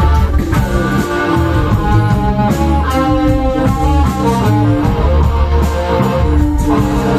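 A rock band playing live, electric guitar to the fore, over a heavy, pulsing low end and regular drum hits.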